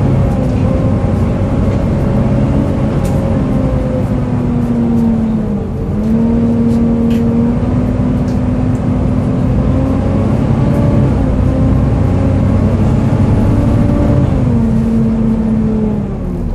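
Volvo B7TL double-decker bus under way, heard on the upper deck: engine running with a loud, hoover-like whine from its cooling fan. The whine dips in pitch about six seconds in and falls again near the end as revs drop, with a few light rattles.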